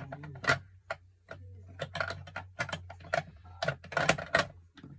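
Rapid, irregular clicks and knocks of small objects being handled close to the microphone, over a low steady hum that stops just before the end.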